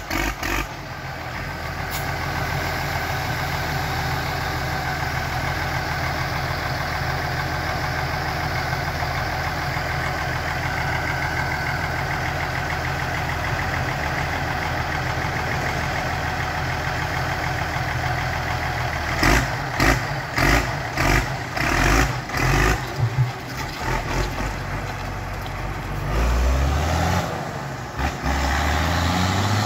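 Deutz-Fahr AgroStar 6.31 turbocharged tractor engine idling steadily, then blipped sharply on the throttle several times about two-thirds of the way in, and revved up near the end.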